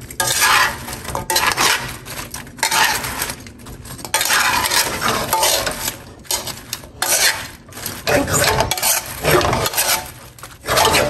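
Metal tongs scraping and clanking against a stainless steel wok as sauce-coated chicken wings are tossed and turned, in uneven strokes about once a second with brief pauses between them.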